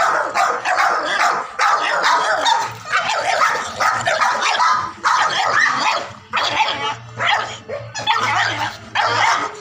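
A dog barking repeatedly, a bark or short run of barks about once a second.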